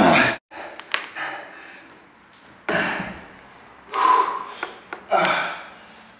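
A man breathing hard under exertion during a dumbbell burpee-press set: short, forceful breathy exhalations, three of them in the second half, with a sharp knock about a second in.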